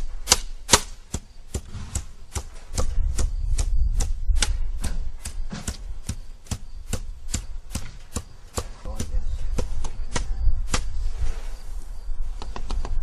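A long-handled steel bar chopping repeatedly into heated, softened asphalt during an infrared asphalt repair, with sharp strikes about two to three a second. A steady low rumble runs underneath. The strikes pause briefly near the end.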